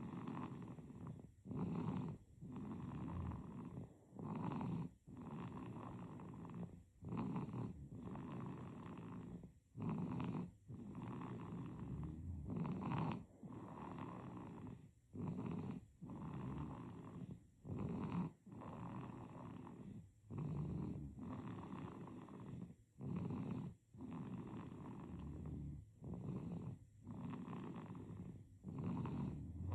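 A baby snoring in sleep: rhythmic, rasping breaths one after another, each breath split by a short pause, with no let-up.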